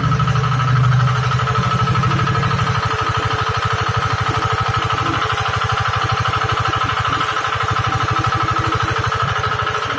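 Engine of a hydraulic water-well drilling machine running steadily, with an even pulsing beat and a steady high whine over it. A deeper hum drops away about three seconds in.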